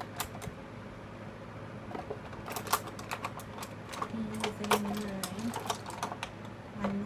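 Makeup brush handles clicking and clattering against each other as they are picked out of a container: irregular sharp taps, busiest in the middle.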